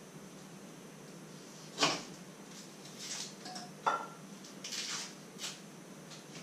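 Knife work at a wooden cutting board with small vegetables: two sharp knocks, about two and four seconds in, the second with a short ringing tone, among softer scraping and rustling. A steady low hum runs underneath.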